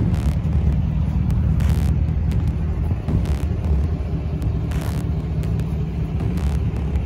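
Pickup truck engine running at low revs as the truck creeps its front wheel up onto a steel mesh trailer gate. A short sharp hit comes about every second and a half.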